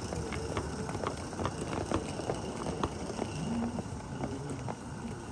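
Train of small model coal wagons rolling past on a garden-gauge track behind a live-steam locomotive: wheels clicking irregularly over the rail joints over a low rolling rumble.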